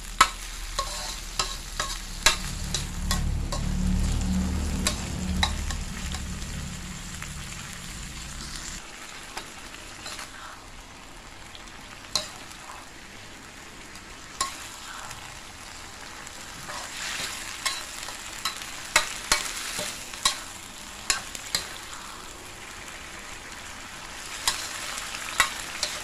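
Minced pork and tomatoes sizzling in a metal wok as they cook down, with a metal spatula stirring and scraping and clacking sharply against the pan at irregular moments. A low rumble sits under the frying for the first nine seconds or so, then stops.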